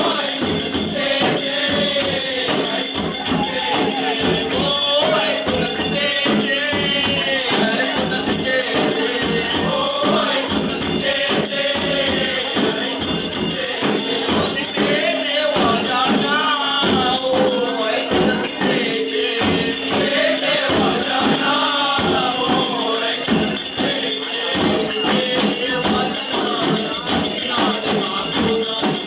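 Live Konkani Shimga folk song: singing carried by a steady beat on hand-played double-headed drums, with metal percussion ringing over it.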